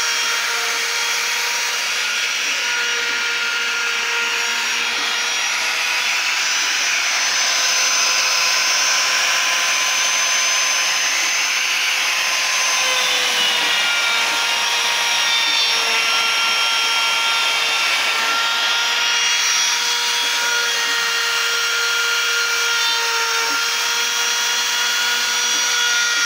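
CNC router spindle running with a steady high whine under a continuous rushing hiss. Its pitch dips slightly about 13 seconds in, then holds steady again.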